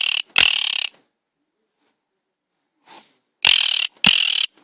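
Quaker parrot giving harsh, rasping squawks in two pairs, one at the start and one about three and a half seconds in, each squawk about half a second long.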